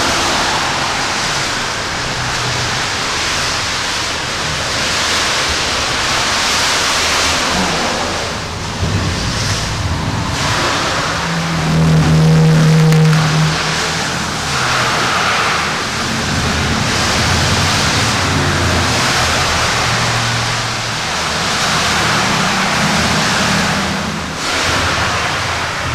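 Heavy rain pouring down, a loud, steady hiss, with a low hum coming and going underneath, strongest about halfway through.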